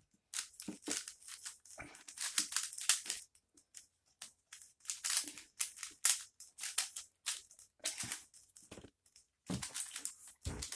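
Plastic 3x3 twist cube (a 3x3 shape-mod puzzle) turned rapidly by hand: irregular bursts of quick plastic clicking and clacking as the layers are turned, with short pauses between runs of moves.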